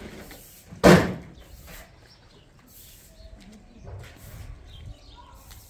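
A single loud thump or bang about a second in, followed by a few faint knocks.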